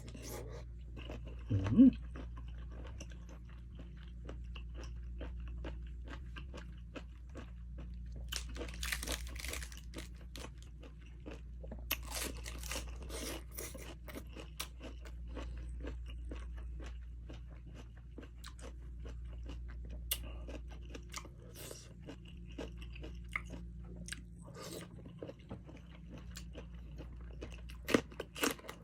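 Close-up chewing of blanched cuttlefish: many small wet clicks and smacks of biting and chewing over a steady low hum, with one short loud knock about two seconds in.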